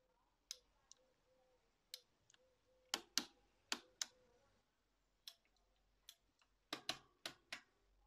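Quiet, irregular sharp clicks and taps, about fourteen of them, coming singly and in small clusters, with the loudest around the middle and near the end.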